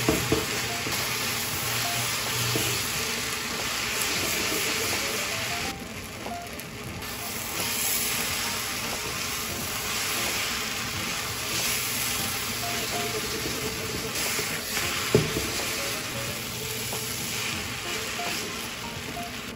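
Thick Chinese egg noodles and vegetables sizzling in a frying pan as they are stir-fried and tossed with tongs. A sharp clack of the tongs against the pan comes at the very start and again about fifteen seconds in.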